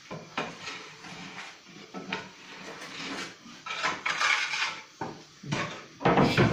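Metal baking trays of prosphora clanking and scraping against the floor of a wood-fired oven as they are loaded in, a string of irregular knocks. Near the end a louder knocking starts: the monastery's wooden talanto being struck for the start of the Liturgy.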